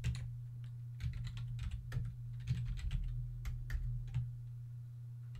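Typing on a computer keyboard: a run of irregular key clicks that stops about four seconds in, over a steady low hum.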